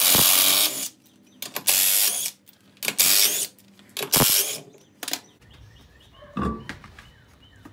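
Cordless impact wrench hammering off a car's wheel lug nuts in four short bursts, each under a second. A single thump follows about six and a half seconds in.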